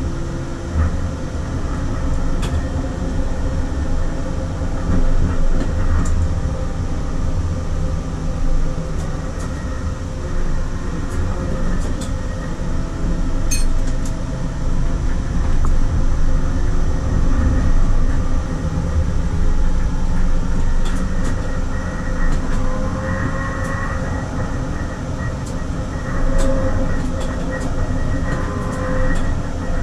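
Sporveien SL95 tram running along its line: a steady rumble of wheels on rails, broken by a few sharp clicks. A higher tone comes in during the second half.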